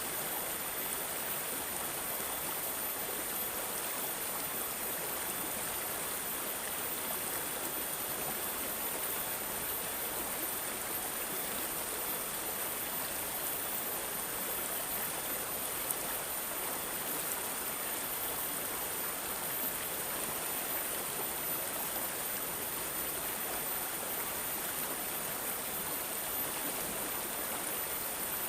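Running water trickling and gurgling steadily, an even, unbroken babble with no pauses.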